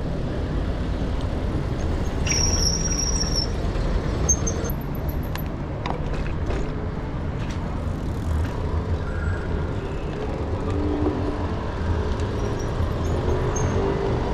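City street traffic heard from a moving bicycle, over a steady low rumble. A brief high squeal about two seconds in, and a few sharp clicks around five to six seconds in.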